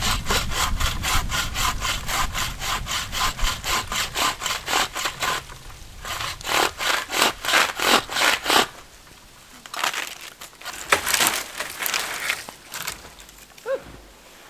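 A bucksaw cutting through the dry wood of a dead standing tree trunk in even back-and-forth strokes, about four a second. It saws in three runs with short pauses between, the last run louder and less regular.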